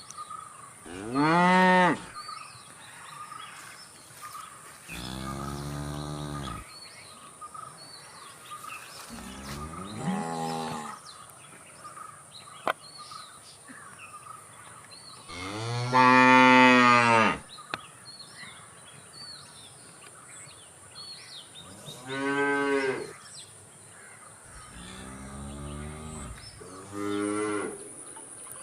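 Cattle mooing: about seven separate drawn-out moos, each a second or two long, with the loudest about halfway through. Faint chirping runs in the background.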